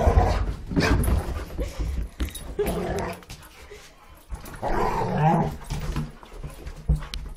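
Two Dobermans running down carpeted stairs with heavy thudding footfalls, then making excited dog vocalizations at close range, loudest about five seconds in.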